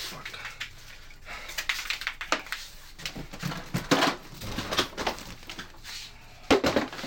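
Irregular rustling and clattering of objects being shifted and pulled about by hand while rummaging through a cluttered storage room, with louder knocks about four seconds in and again near the end.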